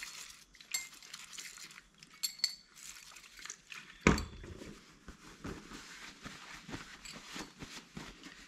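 Light metallic clinks and taps of engine bearing shells being handled and set down on a hard surface, with one louder knock about four seconds in.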